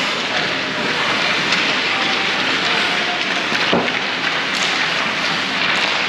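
Steady, loud din of an ice-hockey rink during play, with one sharp knock a little past the middle.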